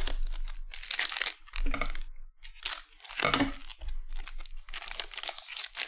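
Wrapper of a Panini Select basketball card pack being torn open and crinkled in a series of short rips.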